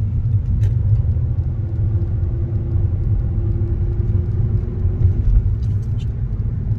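Steady low rumble of a car driving, heard from inside the cabin, with a faint steady hum for a few seconds in the middle and a few light clicks.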